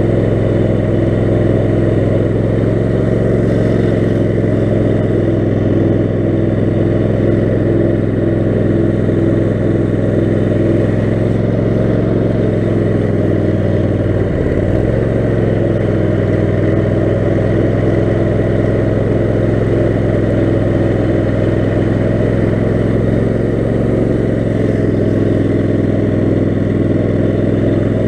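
Lawn mower's Kohler 18 HP Command engine running steadily under throttle, its pitch dipping briefly about halfway through before settling back.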